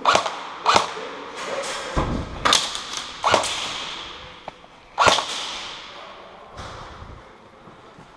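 Airsoft guns firing single shots in a hard-walled room: about five sharp cracks spread over five seconds, each with a long echoing tail, and a low thud about two seconds in.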